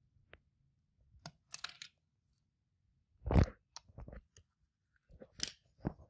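Small metallic clicks and scrapes of a spring bar tool prying a watch bracelet's spring bars out of the case lugs, with a single dull knock about three and a half seconds in as the loudest sound.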